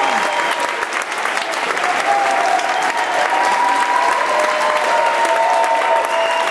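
Audience applauding steadily, with a few long held cheers above the clapping.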